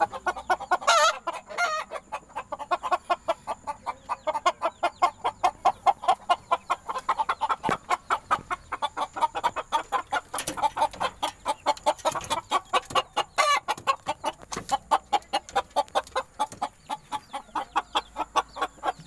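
Chickens clucking in a rapid, steady run of short clucks, about four to five a second.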